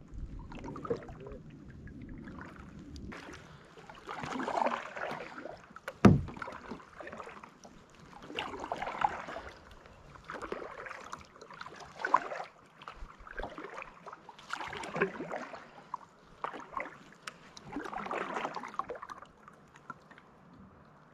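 Kayak paddling: paddle blades dipping and pulling through lake water in a steady run of strokes, about one every second and a half from about four seconds in. A single sharp knock about six seconds in, the loudest sound, is likely the paddle striking the plastic hull.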